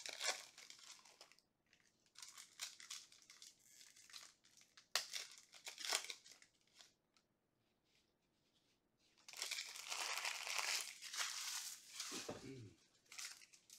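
Foil trading-card pack wrappers crinkling and tearing as packs are opened, in several short bursts. After a pause of about two seconds comes a longer, louder stretch of crinkling near the end.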